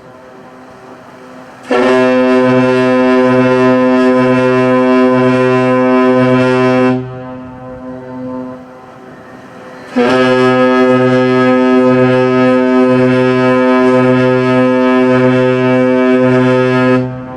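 Ship's horn sounding two long blasts of about five and seven seconds, a deep, steady, many-toned note with a low throb pulsing about twice a second underneath.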